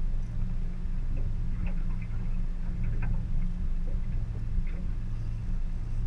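Steady low hum of a boat's outboard motor, with light irregular ticks as a fishing reel is worked while playing a fish.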